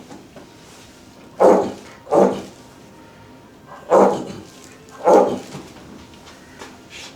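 Four short, loud vocal bursts in two pairs, each pair about a second apart, with quiet room noise between them.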